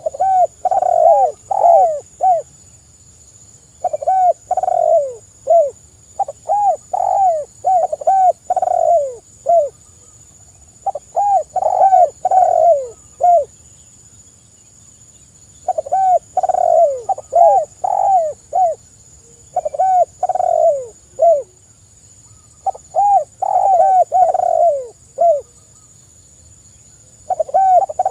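Spotted dove (tekukur) cooing in full song: phrases of several quick, mellow coo notes, repeated about seven times with short pauses between. A faint steady high-pitched hiss runs underneath.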